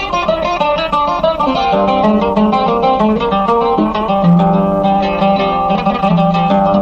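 Instrumental music led by a plucked string instrument playing a quick melodic run, with a held low note entering about four seconds in.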